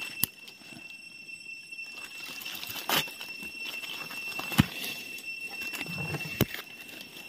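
Dry leaf litter crackling, with a few sharp clicks and snaps, as hands cut and pick mushrooms from the forest floor. A steady high-pitched tone runs underneath.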